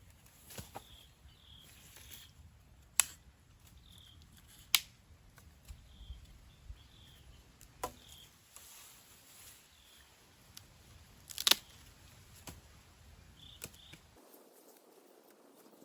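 Sharp knocks or clicks at irregular intervals, four of them loud and several fainter, over faint high chirping from insects or birds.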